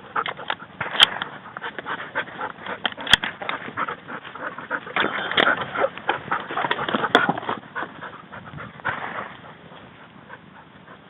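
Hunting dog panting, with scattered rustles and clicks, busiest in the middle and fading near the end.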